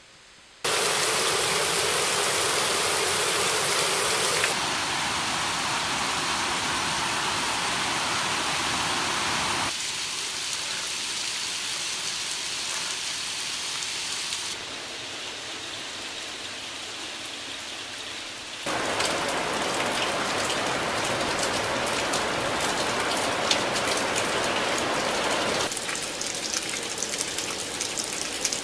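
Steady rain starts abruptly under a second in. It runs as a string of rain recordings joined by hard cuts, each changing its loudness and tone. In the later part, many separate drops tick sharply on a hard surface.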